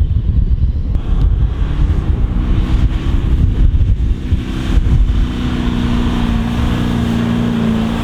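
Four-wheel-drive's engine working under load in soft sand, settling into a steady, held pitch a couple of seconds in, with wind buffeting the microphone.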